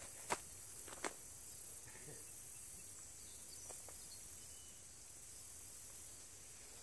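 Faint outdoor field ambience with a steady high chirring of insects, and two soft clicks in the first second.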